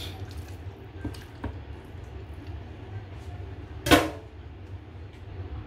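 Kitchen knife cutting raw chicken pieces on a plastic cutting board: a few light knocks of the blade on the board, then one much louder, sharp chop about four seconds in. A low steady hum runs underneath.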